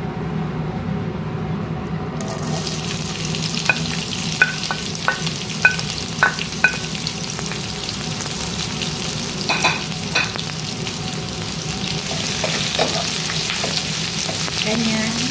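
Sliced onions dropped into hot oil in a non-stick frying pan, starting to sizzle suddenly about two seconds in and sizzling steadily from then on, over a steady low hum. A run of short sharp ticks comes a few seconds later and twice more near the middle, and near the end a wooden spatula stirs the onions.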